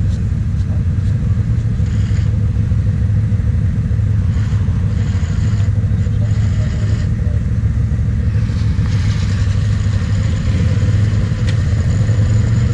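Quad (ATV) engine idling steadily close by, a constant low rumble, with another quad's engine revving at times as it works through a muddy trench.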